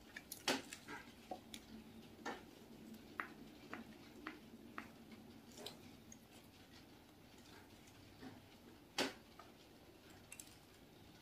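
Close-up eating sounds: the crisp, cracked topping of a bun crackling in sharp, irregular little clicks as it is pulled apart by hand and chewed, with one louder snap about nine seconds in.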